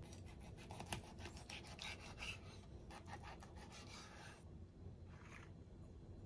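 Faint, quick scraping strokes in rapid succession, stopping about four seconds in, with one more short scrape a second later.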